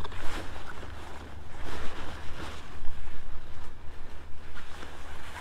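Pop-up camper tent canvas and cover fabric rustling in irregular swishes as it is handled and smoothed, over a steady wind rumble on the microphone.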